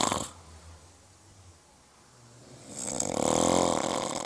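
Loud, drawn-out staged snoring for the sleeping sultan character: one long snore dies away just after the start, then after a quiet gap of about two seconds another swells up and fades near the end.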